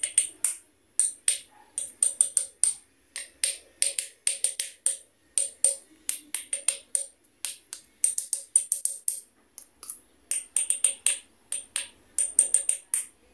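A tazo disc tapped rapidly and repeatedly against a mug: a long run of sharp clinks, several a second, in bursts with brief pauses, each tap ringing faintly.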